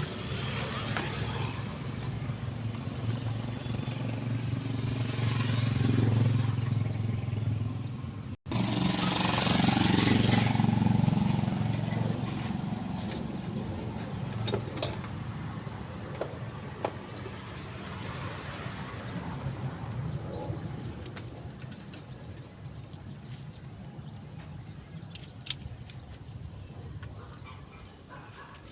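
A motor vehicle's engine rumbling, swelling twice and then fading away, with faint light clicks and taps in the later part.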